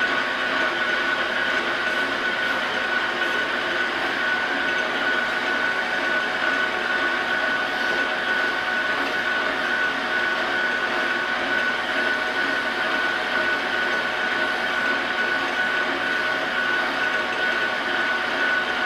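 Metal lathe running steadily with a high, even whine, while a strip of emery cloth is held against the spinning steel part to polish it.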